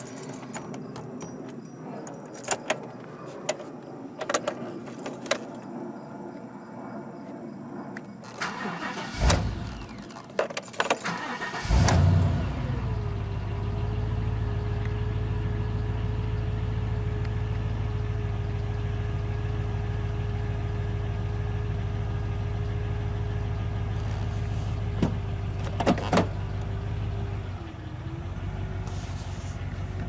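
Keys jangling and clicking, then about twelve seconds in the Silverado's 8.1-litre Vortec V8 cranks, catches and settles into a steady idle. This is the first start after new coils, spark plug wires and plugs were fitted to cure a misfire. Near the end the idle note dips briefly as the Allison transmission is shifted into drive.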